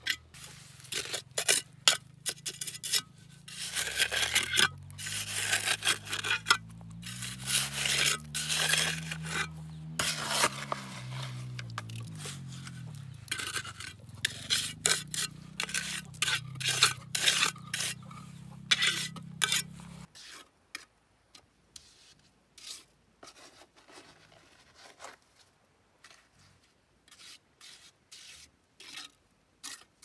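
Rapid scraping and rubbing strokes of hand work on bricks, dense for most of the time and sparser near the end. Under them runs a low hum whose pitch rises and then falls, and which stops abruptly about two-thirds of the way through.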